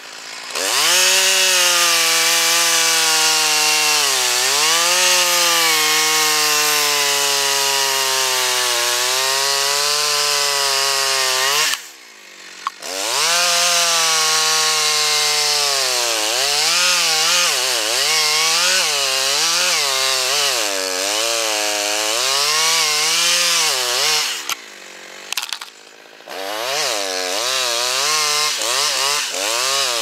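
Two-stroke gas chainsaw cutting into a standing tree trunk at full throttle, its engine pitch wavering up and down as the chain loads in the wood. Twice it drops back to idle for about a second or two, about twelve seconds in and about twenty-five seconds in, then revs up and cuts again.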